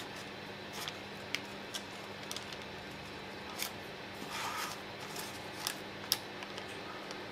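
Silicone spatula spreading and scraping thick cake batter in parchment-lined metal loaf pans: scattered small taps and clicks, a soft scraping rustle about four and a half seconds in, and the sharpest click about six seconds in, over a low steady hum.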